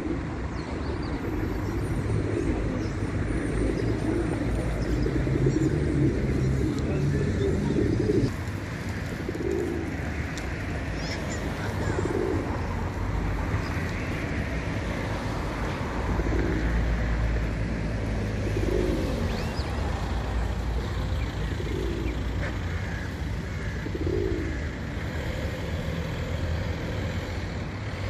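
Male feral rock pigeons cooing. For the first eight seconds the deep, throaty coos run together almost without a break. After that there is a single coo every two or three seconds, over a steady low rumble.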